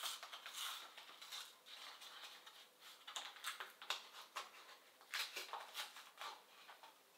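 Small paper carton of fresh cream being opened by hand: stiff coated paperboard crackling and rustling as the top is pried apart, in a few clusters of quick crinkles.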